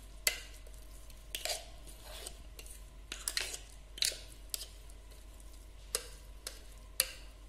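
A steel spoon scrapes thick, coarsely ground batter out of a steel mixer-grinder jar into a steel pot. Irregular scrapes and wet plops are broken by a few sharp clinks of spoon on steel.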